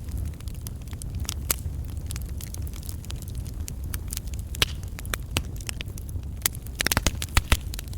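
Wood campfire burning logs: a steady low flame sound with sharp crackles and pops of the burning wood scattered throughout, a quick run of pops near the end.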